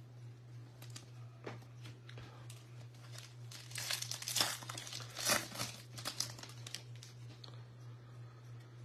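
Foil wrapper of a Bowman baseball card pack crinkling and tearing as it is ripped open, loudest in two crackly bursts about four and five seconds in, with lighter rustling and handling of the cards around them.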